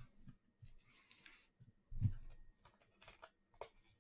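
Trading cards being handled: scattered light clicks and taps, a brief soft brushing noise about a second in, and a light thump about two seconds in.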